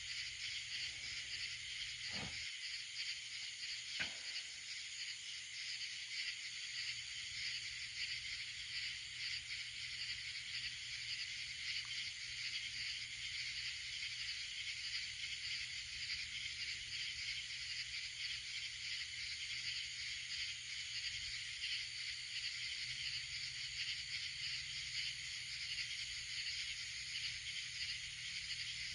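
Steady outdoor night chorus of insects, a dense high shimmering hiss, over a low steady hum, with a short knock about four seconds in. No thunder is heard.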